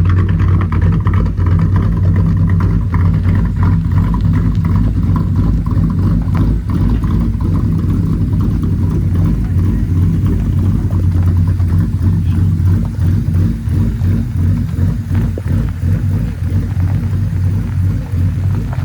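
Ford Crown Victoria's 4.6-litre V8 running steadily, a loud low drone with no change in speed.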